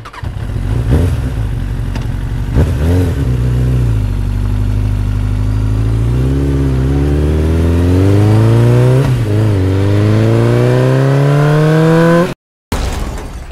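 Engine-like revving sound effect, its pitch climbing steadily with a brief dip about nine seconds in, then cutting off abruptly, followed by a short echoing hit.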